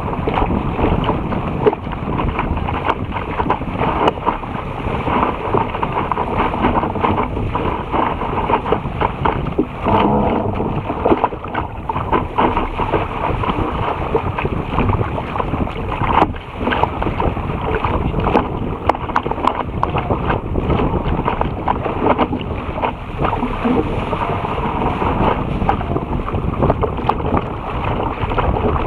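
Water rushing and splashing against the bow of a small sailing dinghy moving fast through chop, with wind buffeting the microphone. The noise is steady, broken by frequent short slaps of spray on the hull.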